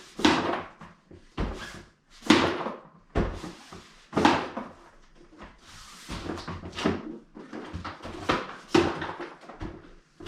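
Irregular knocks, scrapes and rustles of a part being wrestled free of its packaging by hand, with sharp clunks roughly every second.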